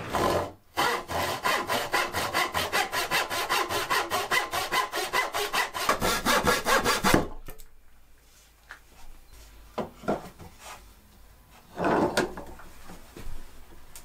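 Handsaw cutting through an old wooden bed-frame board in fast, even strokes, stopping abruptly about seven seconds in. A few quieter knocks follow.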